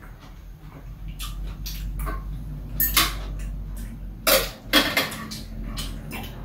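Spoon and chopsticks clinking and scraping against bowls while eating: several separate sharp clinks, the loudest about three seconds in and again just after four seconds.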